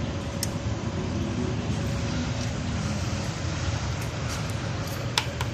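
Steady low background rumble, like passing traffic, with a couple of faint clicks.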